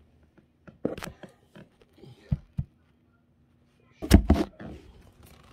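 Handling noise from the recording phone being grabbed and moved: a series of knocks, low thumps and rubbing on the microphone, with the loudest cluster of bumps about four seconds in.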